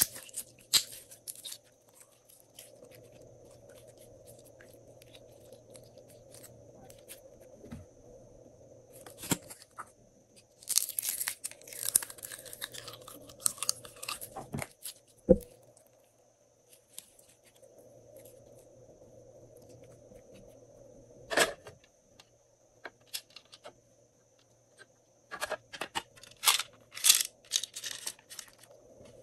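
Slime being squeezed by hand and poured from bottles and a cup into a glass bowl: sticky crackling and squishing in irregular bursts, with two sharp clicks, over a faint steady hum.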